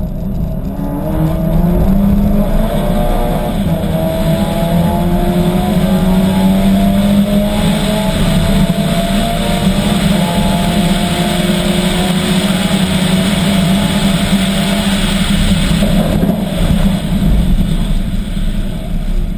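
VW Golf R rally car's turbocharged four-cylinder engine under hard acceleration, its note climbing through the revs and dropping back at each DSG gear change, over a steady hiss of tyres on loose gravel.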